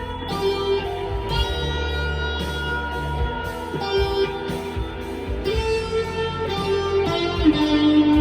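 Squier Classic Vibe Telecaster electric guitar played through a Blackstar V2 amp's modulation effect, held single notes in A minor that change every second or two.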